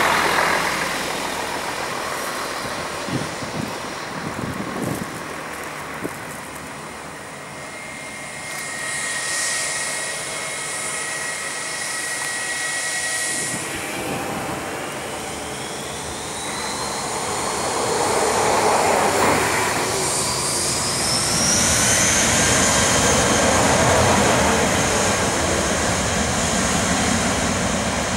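Airbus A319's twin IAE V2500 turbofans whining over a steady jet roar as the airliner taxis. About halfway through the engines spool up: the whine rises in pitch and the roar grows louder.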